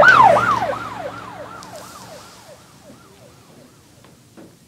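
Emergency vehicle siren in a fast yelp, rising and falling about three times a second. It is loudest at the start and fades away over the next three seconds, as if passing by.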